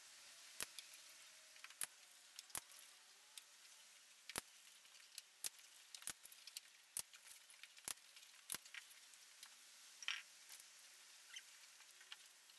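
Faint, irregular sharp clicks and taps of a dog's claws on stone paving as it walks and steps about, with a short scuffle about ten seconds in.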